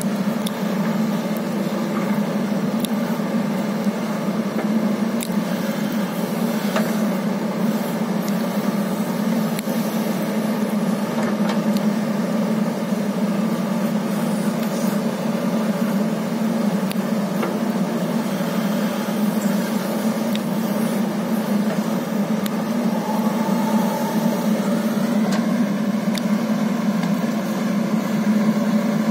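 Diesel engine of a JCB 3DX backhoe loader running steadily in normal mode as the backhoe digs soil and loads it into a tractor trolley, with a few faint clicks.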